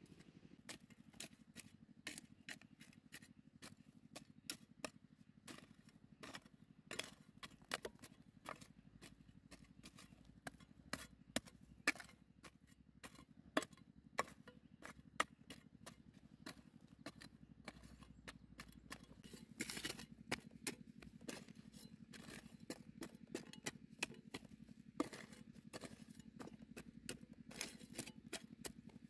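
Vegetable stems being cut: a long run of sharp snips and clicks, irregular, about two or three a second, with a short rustle of leaves about twenty seconds in.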